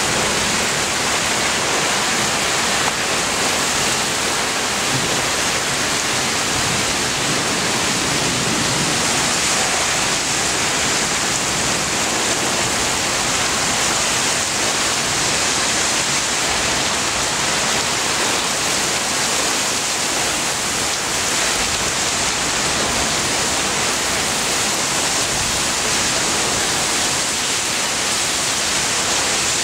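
Torrential rain pouring down in a thunderstorm downpour of about 3–4 inches an hour, a dense, steady hiss with no letup.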